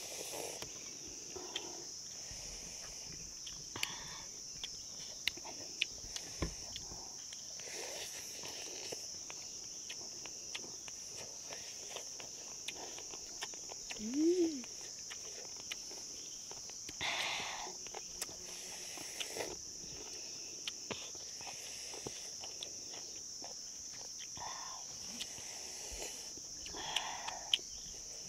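Insects, crickets or cicadas, chirring in a continuous high-pitched drone. Scattered light clicks and a few brief rustles sound over it, and about halfway through comes one short call that rises and falls in pitch.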